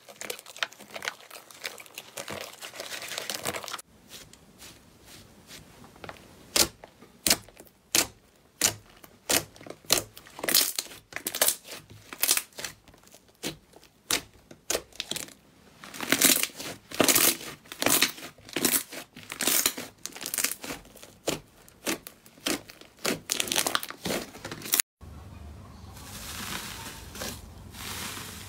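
Slime worked by hand: dense crackling squelches at first, then sharp sticky pops, one or two a second, as fingers press into the slime and lift off. Near the end, gold foil on slime crinkling steadily under the hands.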